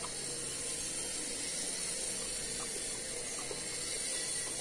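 Steady background hiss with an even high-pitched band running through it, and faint soft chewing sounds from people eating fried chicken.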